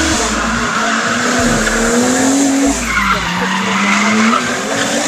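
Nissan 240SX with an RB20DET turbocharged straight-six drifting, engine held high in the revs over the continuous hiss of sliding tyres. The engine pitch drops about three seconds in, then climbs again.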